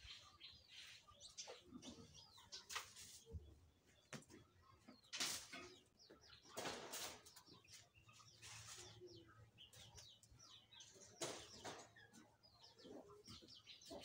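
Faint scattered bird chirps, with a few brief louder rustles from sticks and plastic being gathered off bare earth.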